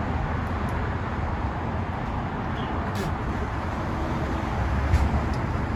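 Steady rumble of road traffic from passing cars, with a couple of short clicks about three and five seconds in.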